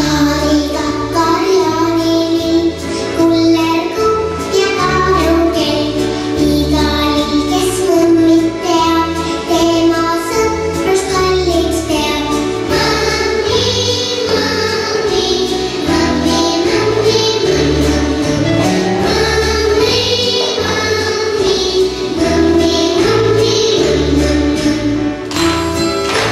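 Children's dance song: a sung melody, with voices singing together, over a steady bass beat.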